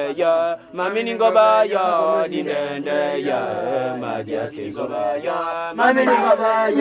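Bwiti ritual chanting: voices chanting with wavering, sliding pitches. The chant drops away briefly about half a second in, and a louder voice comes in near the end.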